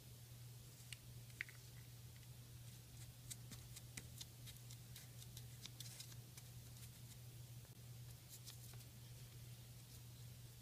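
Faint, irregular taps and scratches of a plastic fork being dabbed in paint against paper, over a steady low hum.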